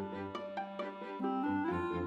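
Background music: a melody of short notes stepping in pitch over a regular bass pulse.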